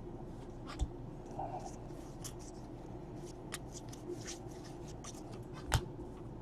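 Baseball trading cards being flipped through and slid against one another by hand: a run of faint papery ticks and slides, with two louder sharp taps, about a second in and near the end.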